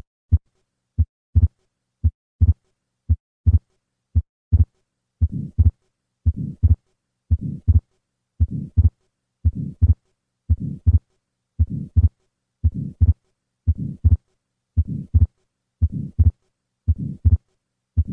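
Heart sounds of an atrial septal defect, about one beat a second: a first heart sound and a fixed split second heart sound. From about five seconds in, a soft systolic flow murmur across the pulmonic valve fills the gap between them.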